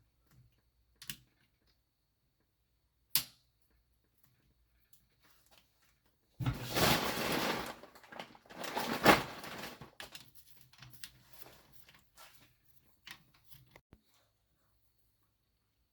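Metal engine parts and hand tools handled on a workbench: a couple of sharp clicks, then about three seconds of louder clattering that ends in a loud knock, then scattered light clicks.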